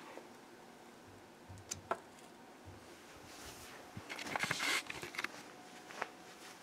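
Faint handling noise from a doll and its basket being picked up and moved by hand: two small clicks about two seconds in, then a spell of rustling from about four to five seconds.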